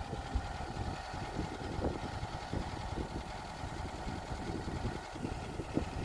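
Tofaş car engine idling: a steady, uneven low rumble.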